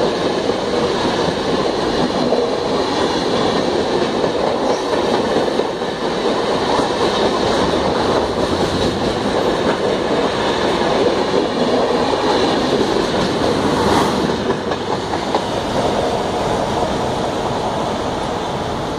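LHB passenger coaches running past close alongside at speed, a steady loud rush of wheel and rail noise. There is one sharp clank about 14 seconds in, and the noise eases slightly near the end as the last coach clears.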